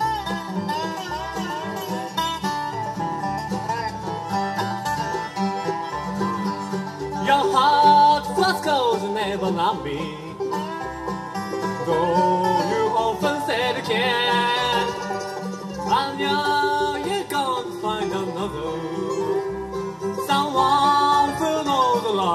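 Bluegrass band playing live with fiddles, five-string banjo, mandolin, dobro, acoustic guitar and upright bass, the bass giving a steady pulse under sliding fiddle and dobro melody lines.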